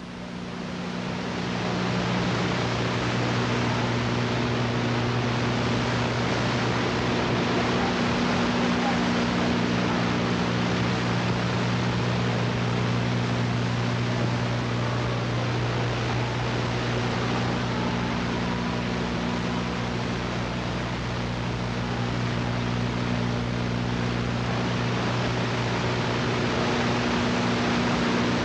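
Steady hiss with a low, even electrical hum, fading in over the first two seconds and then unchanging: the noise of a blank stretch of videotape where a commercial break was cut out.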